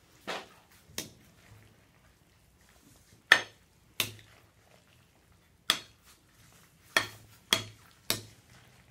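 A spatula knocking against a glass mixing bowl as a thick creamy salad is stirred: about eight sharp clinks at uneven intervals.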